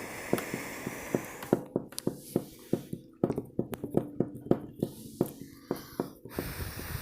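Close-miked eating sounds: irregular sharp crunches and wet mouth clicks, a few each second, over a steady hiss.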